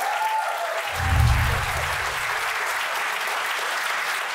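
Club audience applauding steadily, with a deep low boom about a second in that fades away over a second or so.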